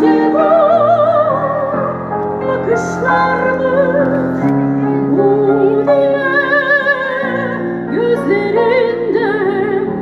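A female soprano singing a slow melody in an operatic style with wide vibrato, over held keyboard chords.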